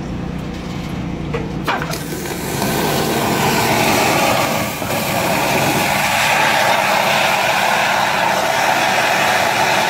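A 3000 psi sewer water jetter comes on about two seconds in, after a click: its nozzle sprays high-pressure water inside the drain line with a loud, steady rushing hiss over a low engine hum, as it blasts grease from the line.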